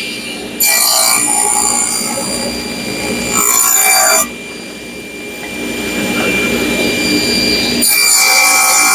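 Table saw running with a steady whine, its blade cutting three short pallet-wood pieces in turn, about a second in, around three and a half seconds in, and near the end.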